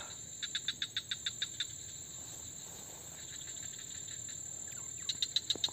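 Insects calling: a steady high-pitched drone, with a rapid run of chirps at about seven a second near the start and again near the end.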